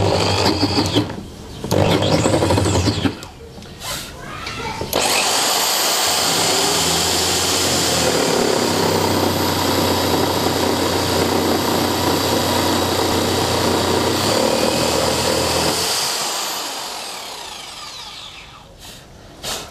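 Bosch GST 8000 jigsaw fitted with a larger blade, set to mode 1, cutting a block of wood. Two short bursts come in the first three seconds, then a steady cut of about ten seconds starting about five seconds in, which fades away near the end.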